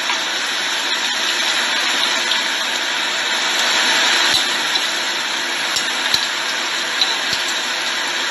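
Ginger slices frying in sesame oil in a frying pan, a steady sizzle with a few sharp clicks.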